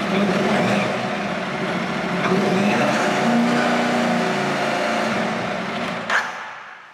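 Aprilia Tuareg 660's parallel-twin engine running steadily, then stopping near the end, its sound dying away over about a second.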